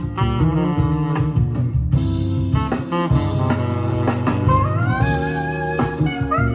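Jazz-style music played back from cassette tape on a Sony TC-KA7ES deck: a melodic lead line over a steady bass, with a rising slide in the lead about four and a half seconds in.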